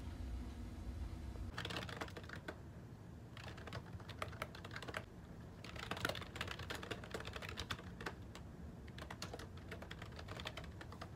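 Typing on a computer keyboard: irregular runs of keystrokes with short pauses between them, starting about a second and a half in after a low hum.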